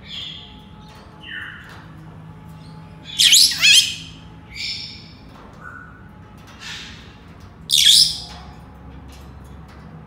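Senegal parrots calling: a run of short whistles and squawks. The loudest are two quick sweeping whistles about three and a half seconds in and a sharp call about eight seconds in.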